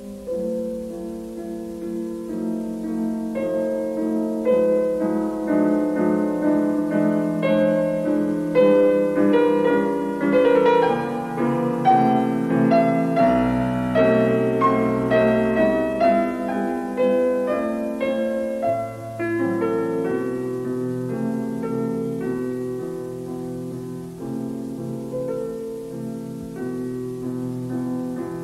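Background music: a piano piece of flowing melody over chords, growing louder toward the middle and easing off near the end.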